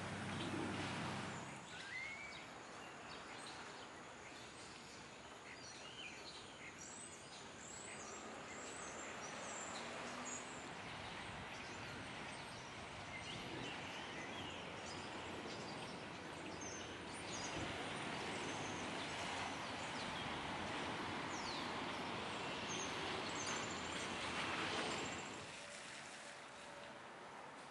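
Street ambience: a steady hiss of traffic, with small birds chirping now and then in the first half. The traffic noise swells for several seconds past the middle, then drops near the end.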